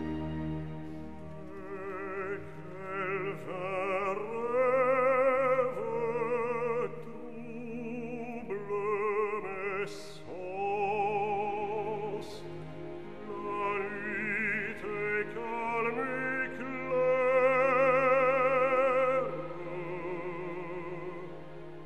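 Operatic singing: a single voice holding long notes with a wide vibrato, in phrases, over soft instrumental accompaniment.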